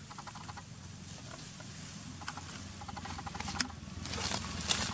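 Light rustling and patter of a macaque walking through dry leaf litter and grass, growing busier near the end. Two short high trills sound, one near the start and one about three seconds in.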